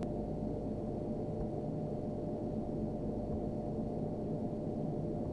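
Steady low background hum with a faint held tone, unchanging throughout; no handling clicks or other events stand out.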